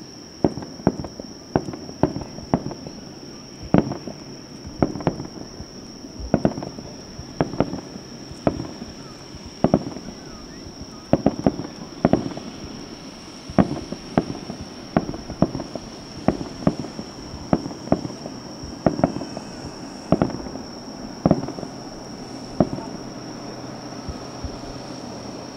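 Aerial fireworks shells bursting in a continuous, irregular barrage, sharp bangs about one to two a second, each trailing off briefly.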